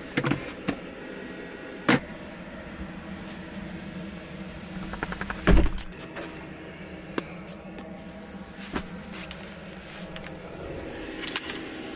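Handling noise: a few scattered clicks and knocks as an electric blanket's cords are gathered up, the loudest a thump about halfway through, over a steady low hum.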